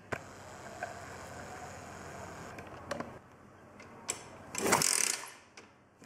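80cc four-stroke pocket bike engine turned over with its kick-starter while the spark plug is out to check for spark: scattered mechanical clicks, then a louder ratcheting spin of the engine about five seconds in.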